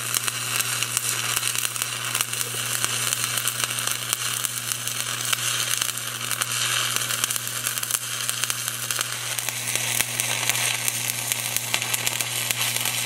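Stick (shielded metal arc) welding with a 1/8-inch 7018 low-hydrogen electrode at about 135 amps DC positive: the arc crackles and sizzles steadily, the sound of a short, close arc laying a root pass.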